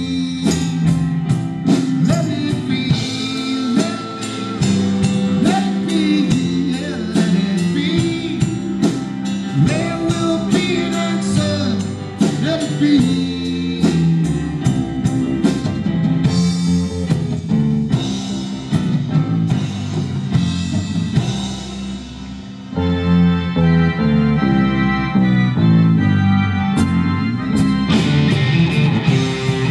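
Live rock band playing a slow ballad on drums, electric guitars, bass and keyboards with an organ sound, with some singing. The music briefly drops back about two-thirds of the way through, then comes back fuller.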